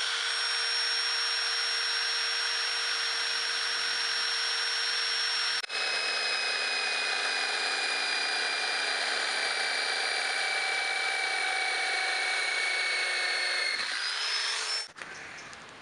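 Electric hand drill running, boring a hole through a car's rear bumper. It stops for an instant about six seconds in and restarts. Its whine then slowly drops in pitch and rises again just before it stops, about a second before the end.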